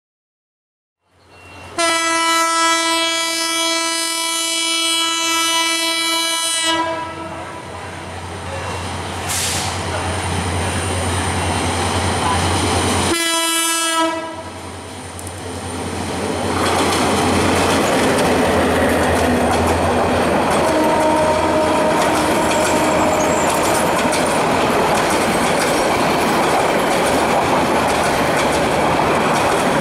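Diesel locomotive horn of the Jamuna Express, one long blast of about five seconds and a short blast about thirteen seconds in, over a low steady engine hum. From about sixteen seconds in, the train's wheels and carriages rumble loudly and evenly on the track, with some clickety-clack.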